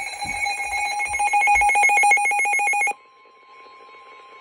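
Emergency alert alarm announcing a severe thunderstorm warning: a rapid electronic trilling beep, about a dozen pulses a second, cuts off suddenly about three seconds in. A faint steady single tone, the weather-radio warning tone, carries on after it.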